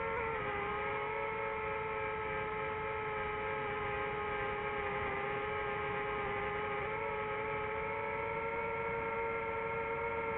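DJI FPV drone's motors and propellers whining steadily in flight, with a slight dip in pitch just after the start.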